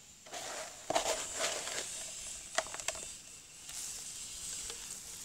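Coarse, chunky potting substrate being scooped from a small cup and poured and spread by hand into a concrete pot around a desert rose's roots: a crunching rustle of chips with a few sharp clicks, pausing about three seconds in before a second, softer spell of rustling.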